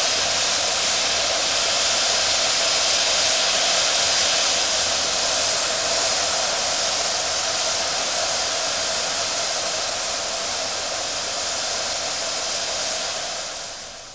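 Steam hissing steadily from a live-steam model New York Central Niagara locomotive, fading out near the end.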